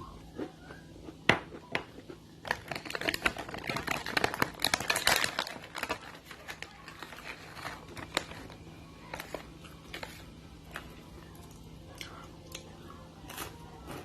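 Close-up crackly crinkling and crunching from snack crackers being handled and eaten: a dense burst of crackling from about two and a half to five and a half seconds in, with scattered sharp clicks before and after.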